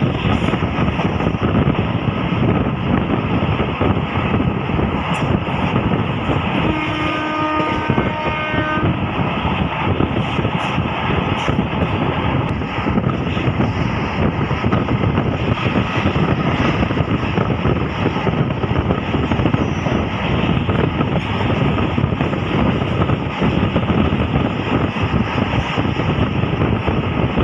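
Steady running noise of a MEMU passenger train heard from an open coach window, wheels and wind rushing. About seven seconds in, a horn sounds for about two seconds.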